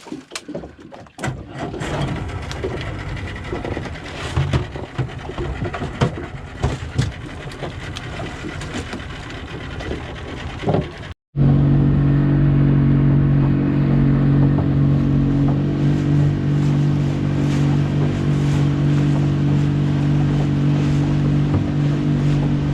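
Knocks and clatter over a noisy background, then after a sudden break, a boat engine running loudly and steadily at a constant speed as the boat travels.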